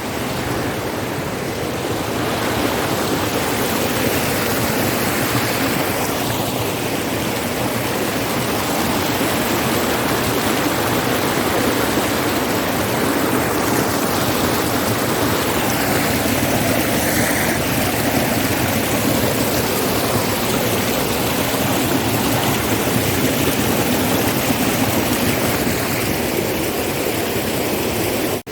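Rushing water of a mountain waterfall, a loud steady rush that stays even throughout.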